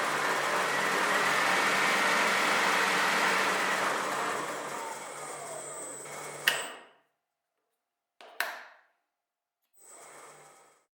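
A machine running with a loud, steady, noisy sound over a low hum, cut off abruptly with a sharp click about six and a half seconds in; then a short burst with a click and, near the end, another faint brief burst of the same hum.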